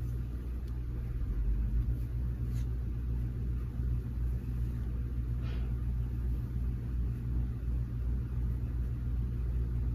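A steady low hum runs under the room, with a few faint rustles as hair is handled and combed.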